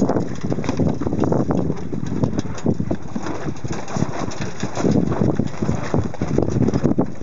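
Wind buffeting the microphone over water rushing and slapping along the hull of a small sailing dinghy under way, a dense, irregular roar throughout.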